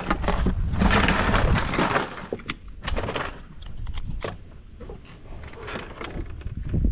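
Irregular rustling and handling noise, then several sharp knocks and clunks on the aluminum jon boat as gear is moved about.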